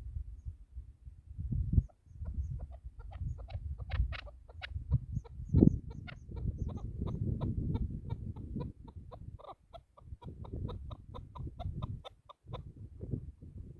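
Chukar partridge calling: a long run of short, evenly repeated call notes that begins about two seconds in and stops near the end, over a low rumble.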